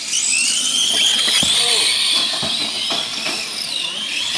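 Several radio-controlled semi trucks' motors whining at once, the pitch of each rising and falling as the trucks speed up and slow down through the corner, with a few short knocks.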